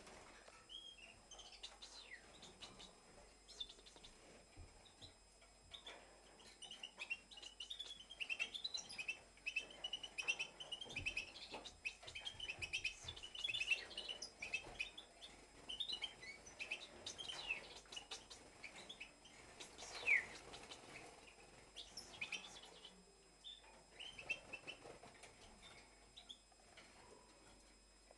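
European goldfinch twittering: a long run of quick, varied chirps and short trills, thickest in the middle, with one louder rising call about twenty seconds in.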